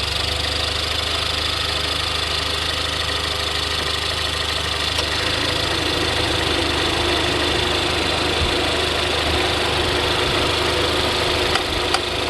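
2018 Ford Explorer engine idling steadily just after starting. A few light clicks come near the end.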